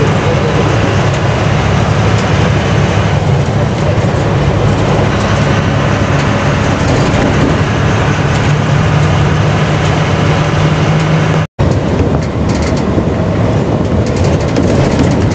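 Tanker lorry's diesel engine running steadily while driving, with road and wind noise in the cab. The sound cuts out for an instant about eleven seconds in.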